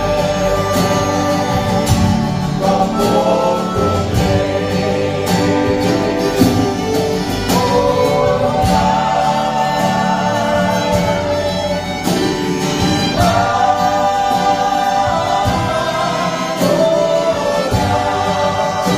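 A small band plays a song with several voices singing together. The accompaniment is a Yamaha electronic keyboard, acoustic guitar, violin and a cajón keeping a steady beat.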